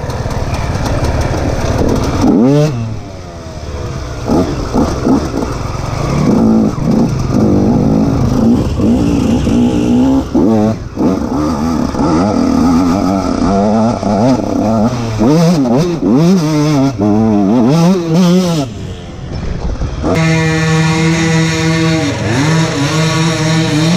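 KTM SX 125 two-stroke single-cylinder dirt bike engine being revved up and down over and over under changing throttle, with brief drops in between. About twenty seconds in it settles to a steadier pitch with small dips.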